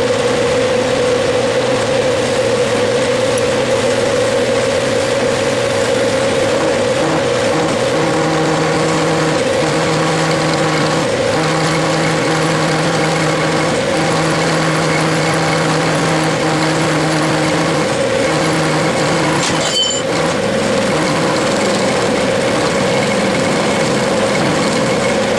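Clausing metal lathe running at about 600 RPM while a form tool plunge-cuts a radius on the end of a 5/8-inch rod, a steady machine whine with cutting noise. A lower tone comes and goes through the middle of the cut, and there is one brief click near the end.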